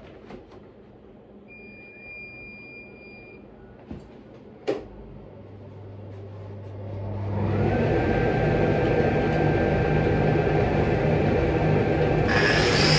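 An electric cutting tool starts up about five seconds in, its whine rising as the motor spins up, then runs steadily and loudly. Near the end a harsher, hissing noise joins as it starts cutting into the gates and risers of a bronze casting.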